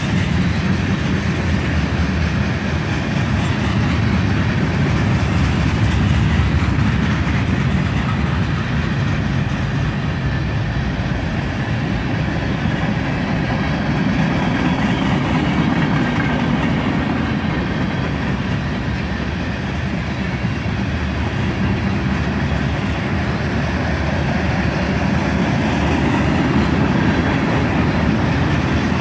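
Freight cars of a CSX manifest train rolling steadily past at close range: a loud, continuous rumble of steel wheels on the rails.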